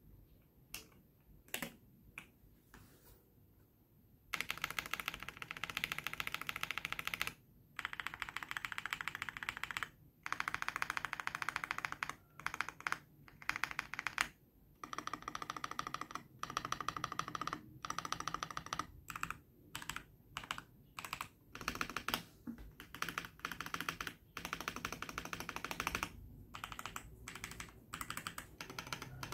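Typing on a Keychron V6 Max mechanical keyboard with prelubed Akko Cream Blue Pro V3 switches and MDA-profile keycaps. A few lone keystrokes, then fast continuous typing from about four seconds in, broken by short pauses.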